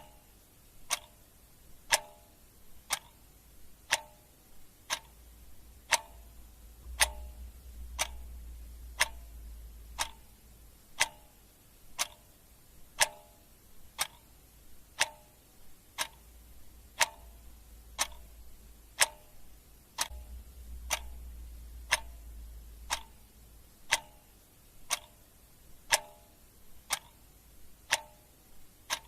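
Clock ticking steadily once a second, the ticks alternating a little louder and softer in a tick-tock pattern.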